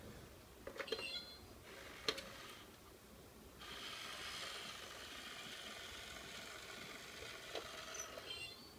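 Small geared electric motor of an Itazura cat coin bank whirring steadily for about five seconds as its mechanism opens the lid and works the toy cat's paw, after a few sharp clicks and taps on the box.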